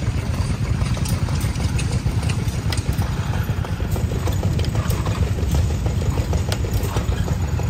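An engine running steadily at low speed, with light mechanical clicks and knocks over it.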